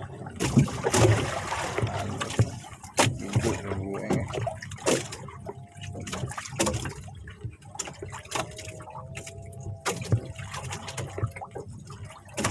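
Water trickling and dripping around a small wooden fishing boat as a handline is hauled in hand over hand, with many irregular knocks and taps on the boat.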